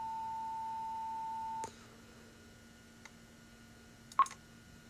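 Steady electronic tone from the dispatch radio console, the siren-activation tone sent out when the siren is set off from the computer. It cuts off suddenly after about a second and a half, leaving a faint hum, and a single sharp click comes about four seconds in.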